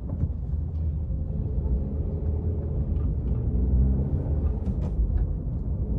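Suzuki hatchback's engine and road rumble inside the cabin as the car accelerates in second gear from low speed.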